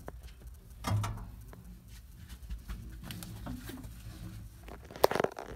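Scattered clicks and knocks of hands handling wiring and parts at a fuse box, with a dull knock about a second in and a sharper cluster of clicks near the end.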